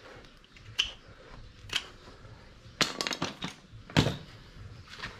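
Hoof-trimming tools working on a cow's hoof: scattered sharp snips and knocks, a quick run of clicks about three seconds in and the loudest knock about four seconds in.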